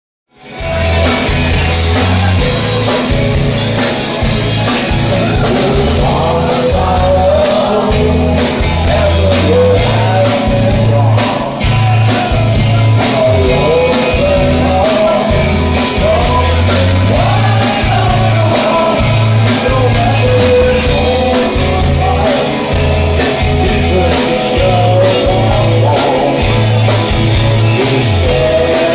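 A dream pop band playing live: a steady, pulsing drum and bass beat, with guitars and a wavering melody line over it. The music comes in just after the start and stays loud.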